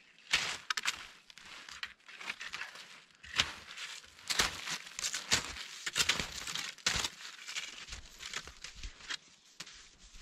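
Backcountry cross-country skis and poles crunching and scraping over an icy crust on the snow, a string of irregular close crunches that thin out near the end as the skier moves away.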